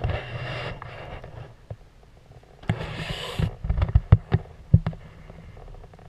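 Scattered sharp knocks and bursts of rustling noise, like footfalls and handling noise from someone shifting about on a wooden boardwalk.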